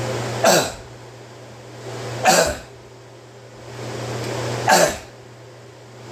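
Loud, seal-like barking croup cough from a man: three single coughs about two seconds apart, each dropping in pitch, with a swell of noise just before each. The steady hum of a kitchen exhaust fan runs underneath.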